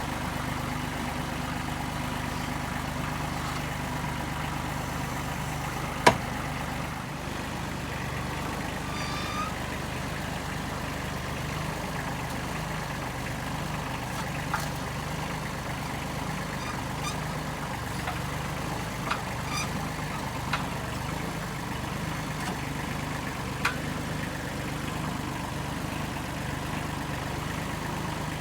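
A vehicle engine idling steadily, with one sharp knock about six seconds in and a few fainter clicks later on.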